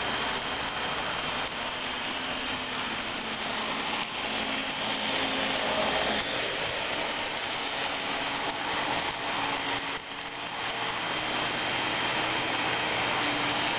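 Model train locomotives running along the layout track: a steady mechanical hum of the small electric motors and gears with the rattle of wheels on the rails, briefly dipping about ten seconds in.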